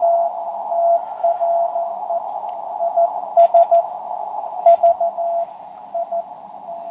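A Morse code (CW) station received on a Penntek TR-45L QRP transceiver through its narrow CW filter and narrow audio filter: a single tone of about 700 Hz keyed on and off in dots and dashes over a narrow band of hiss, sounding almost like a code practice oscillator.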